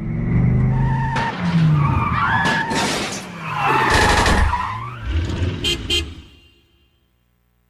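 A busy run of cartoon sound effects from a production logo jingle: pitches slide up and down over sharp hits, then die away about a second before the end.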